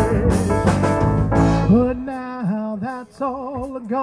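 A man sings lead over a live band with an electric keyboard. Partway through, the full band drops away and his voice carries on alone on long held notes with vibrato over light backing.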